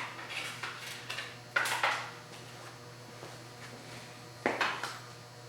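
Clanks and rattles of metal parts on a homemade belt grinder being handled during a belt change, three sharp knocks each followed by a brief rattle.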